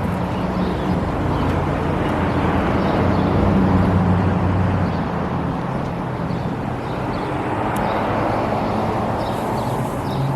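Steady outdoor noise with a low engine hum, as from motor traffic; there are no firework bangs or crackle.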